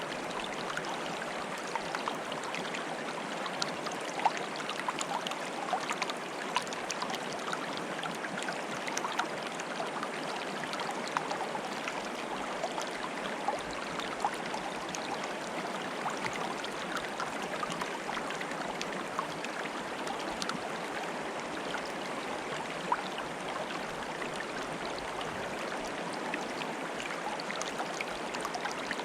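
Flowing water bubbling steadily, a continuous rush dotted with many small, quick plinks and splashes.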